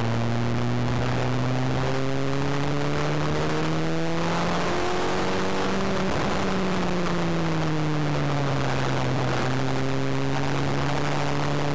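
Ford Fiesta XR2i's 1.8 16-valve four-cylinder engine heard from inside the cabin on track: the revs climb for about four seconds, break briefly around the five-second mark, fall away over the next few seconds, then hold and begin building again near the end.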